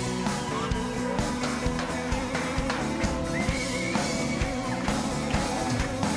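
Instrumental passage of a rock song: guitars over a steady drum-kit beat, with a short sliding note about halfway through.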